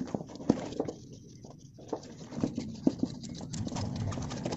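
A kitchen knife scraping along the body of a whole tuna, stripping the thin skin-like outer layer in a quick series of short, irregular scraping strokes.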